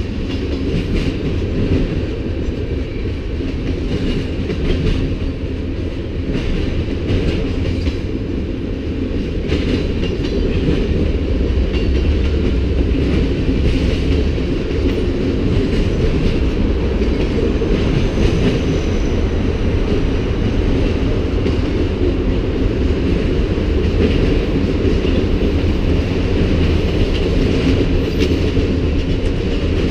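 Freight cars of a CN manifest train, autoracks and a tank car, rolling steadily past: a continuous low noise of steel wheels running on the rails.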